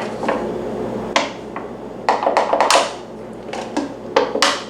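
A dozen or so small popping sounds at irregular intervals, some in quick clusters.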